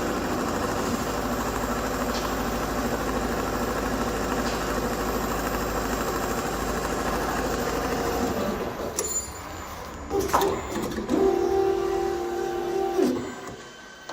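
Richpeace computer-controlled perforation machine running steadily, stopping about eight and a half seconds in. A few knocks follow, then a steady tone lasts about two seconds.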